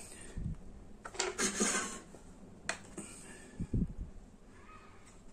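Plastic ketchup squeeze bottle being opened and squeezed over a copper bowl: scattered clicks and knocks from handling, with a short hissing burst about a second in and a sharp click near the middle.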